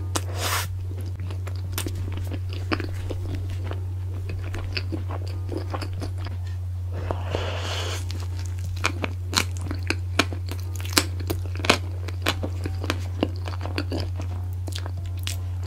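Close-miked ASMR eating: a woman biting and chewing a cheeseburger soaked in cheese sauce. Wet mouth clicks and smacks grow denser in the second half, with a longer slurp about seven seconds in, over a steady low hum.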